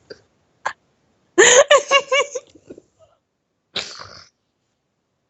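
A voice making short non-speech noises: a sharp click, then a burst of quick repeated pitched sounds, then a short breathy puff.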